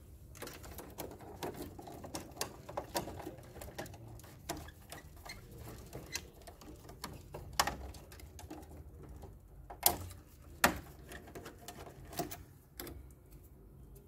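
Hands fitting a black wire into a three-pole miniature circuit breaker's output terminal: a run of small plastic and metal clicks and taps with cable rustle, the sharpest clicks coming about eight, ten and eleven seconds in.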